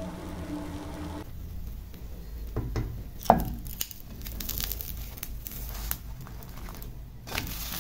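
Silicone spatula scraping and knocking against a nonstick frying pan while it loosens and lifts a chocolate pancake as it cooks. There are scattered short scrapes and clicks, with one sharp knock about three seconds in.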